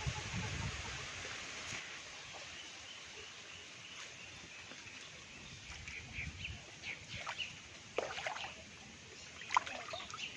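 Outdoor ambience over standing floodwater: a steady rushing haze with water sloshing and trickling, and several short sharp sounds in the second half.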